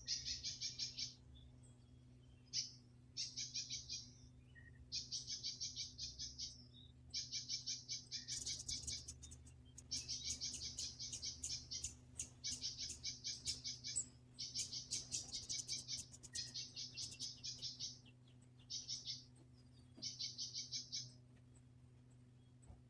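Bird chirping in rapid trills, repeated in bursts of about a second with short gaps, over a faint steady low hum.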